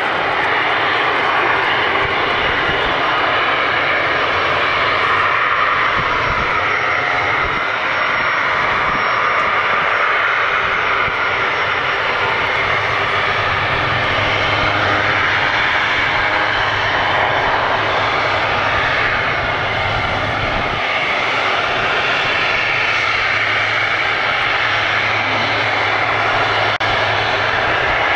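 Boeing 737's two jet engines running at low taxiing power as the airliner taxis past: a steady jet whine and rush, with a low hum coming in about halfway through.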